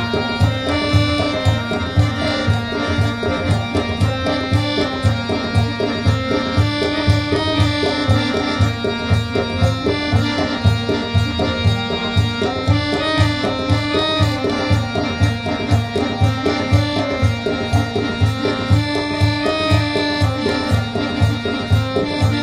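Live traditional folk music from a seated ensemble: a held, reedy melody line stepping between notes over a steady drum beat.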